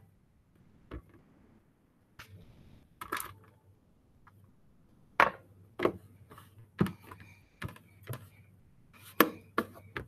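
Fingers pressing crumbly cake-mix crust dough into a greased metal baking pan, with irregular sharp knocks and taps as the hands and pan bump, about ten in all, and faint rustling between them.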